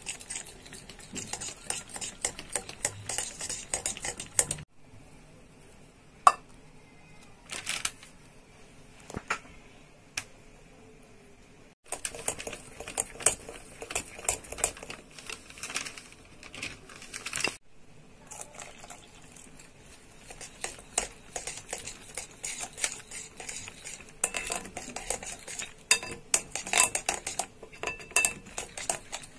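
Push-down spinning whisk clicking and rattling against a glass bowl as it beats flour into egg batter, in quick runs of clicks. It stops suddenly about 5 s in, gives only a few scattered clicks until about 12 s, then starts again in quick runs.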